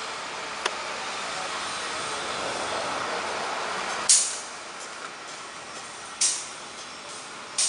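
Construction-site machinery running with a steady hum, then three sharp hisses about two seconds apart, each fading quickly.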